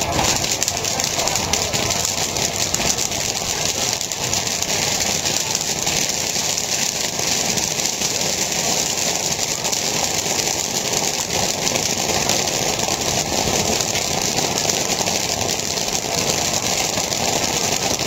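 Corn kernels popping thickly in hot soybean oil in a large iron kadhai, stirred with a wooden paddle, as a dense continuous crackle. A steady noise runs underneath throughout.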